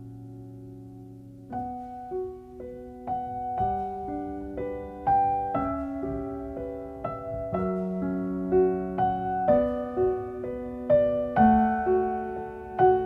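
Background piano music: a held chord fades at first, then from about a second and a half in a slow melody of struck notes, roughly two a second, rings over sustained chords.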